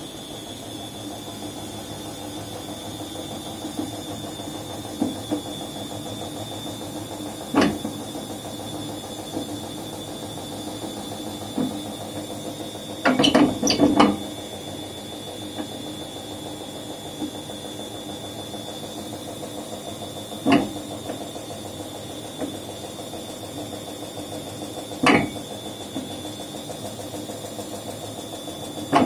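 Washing machine running with a steady hum and a thin high whine, broken every several seconds by sharp knocks and a quick burst of rattling clacks: something in the machine is knocking as it turns.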